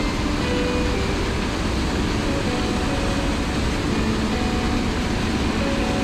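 Water pouring over a stream weir into its plunge pool: a loud, steady rushing.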